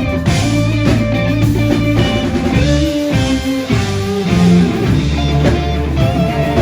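Live blues-rock band playing loud: electric guitar lines with held, bending notes over bass and drum kit.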